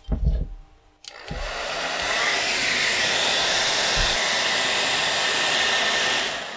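Handheld hair dryer switched on about a second in, building to a steady rushing blow with a faint whine as it heats a small camera's case, then winding down near the end. A brief knock of handling is heard just before it starts.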